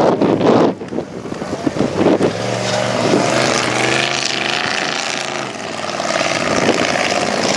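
Tube-chassis off-road buggy's engine revving hard as it climbs a steep dirt hill, its pitch rising and falling with the throttle and settling near the end. Loud rough blasts of noise in the first second.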